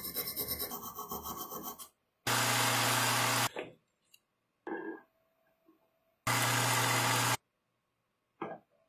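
Hand file scraping across a steel workpiece clamped in a vise, in rapid even strokes for about two seconds. After that a machine motor runs with a steady hum in two short spells of about a second each, louder than the filing, with small handling knocks in between.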